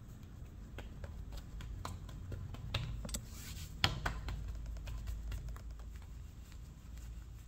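Hands pressing and patting dough on a countertop: a run of light taps and clicks of fingers against the hard surface, the sharpest about four seconds in.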